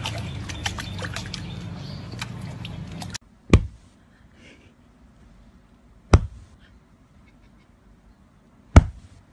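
Water splashing and dripping with many small clicks as a puppy paws at a water-filled stone basin, stopping abruptly about three seconds in. Then three sudden, loud, very short sounds, evenly spaced about two and a half seconds apart.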